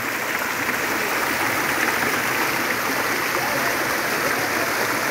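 Rocky hill stream cascading over boulders and rock ledges: a steady, even rush of water.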